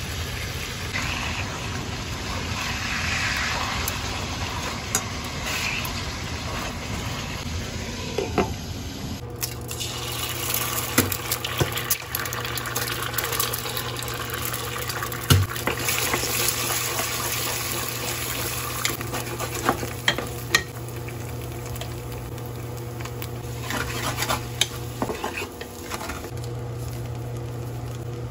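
Hot oil sizzling as a skin-on chicken thigh shallow-fries in a pan. About nine seconds in, the sound changes to eggs sizzling in oil in a pot, with a utensil knocking and scraping against the pot over a steady low hum.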